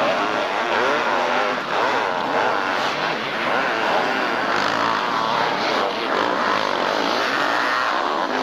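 Several two-stroke motocross bikes racing past at full throttle, their engines' pitch repeatedly rising and falling as riders rev, shift and back off.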